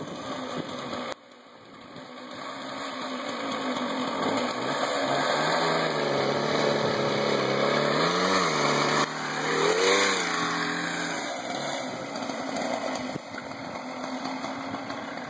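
98cc two-stroke lawnmower engine on a homemade petrol mobility scooter running under way as it rides up, passes close and pulls away. It grows steadily louder to a peak about two-thirds through, with the revs rising and dropping twice near the loudest point, then fades.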